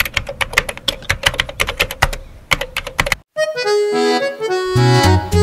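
Rapid, irregular clicking, about six clicks a second, like keys being typed, over a faint steady tone. It cuts off about three seconds in, and a moment later background music with held notes begins.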